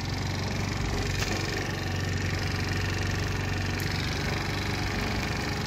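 Small 50 cc scooter engine running steadily, a new engine still in its break-in period.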